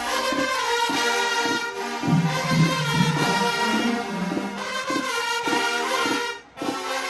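HBCU show-style marching band playing a brass-heavy tune, with a sudden brief break about six and a half seconds in.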